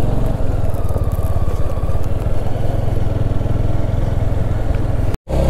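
Yezdi Scrambler's single-cylinder engine running steadily under way, with an even pulse of firing strokes. Near the end it cuts off abruptly for an instant, and a steadier, deeper engine drone follows.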